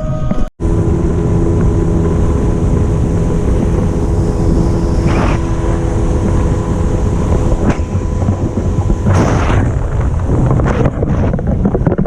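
Boat motor running steadily under way, a low rumble with a steady hum, with wind buffeting the microphone; the hum fades about nine seconds in.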